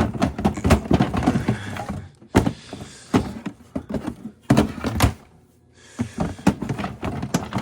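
Shredded paper rustling and crinkling as it is handled and dropped in a pile, with irregular knocks and thunks. It goes quiet for a moment a little past halfway.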